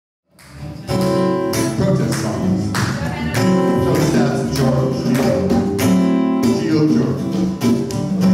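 Small live band of acoustic and electric guitars playing with a steady rhythm, starting out of silence about half a second in.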